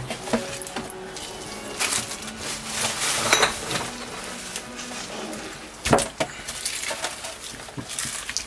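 Kitchen handling sounds as a raw whole chicken is cut in half with a knife: scattered clinks and knocks of the knife and chicken against the container, the loudest knock about six seconds in.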